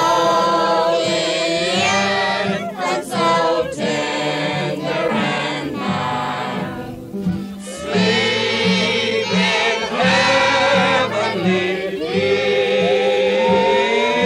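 A choir singing a slow Christmas hymn, several voices holding long notes with wide vibrato, with a short break between phrases about seven seconds in. The sound is an old mono radio broadcast recording.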